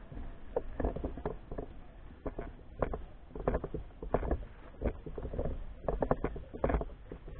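Footsteps and knocks from a camera being carried while walking: irregular sharp taps about once or twice a second over a low rumble.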